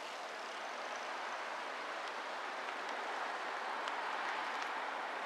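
Steady, even rushing background noise that slowly grows louder, with a few faint ticks.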